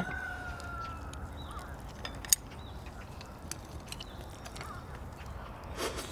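Quiet eating at a shared pan of pork neck bone stew: scattered light clicks of tongs and chopsticks, with one sharper click about two seconds in. A thin, high, slowly falling tone sounds in the first second and a half, and there are a couple of faint short chirps.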